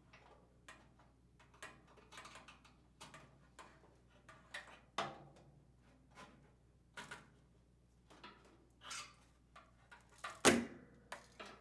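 Scattered light plastic clicks and knocks from working the lid lock assembly free of the washer's top panel, with one louder knock about ten and a half seconds in.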